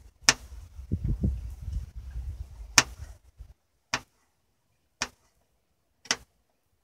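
Kitchen knife slicing a green chili pepper on a plastic cutting board: five sharp knocks of the blade hitting the board, roughly one a second. A low rumble runs underneath from about a second in until past the middle.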